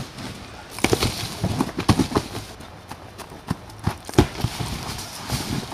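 Irregular knocks and thumps of empty cardboard moving boxes being handled and stacked.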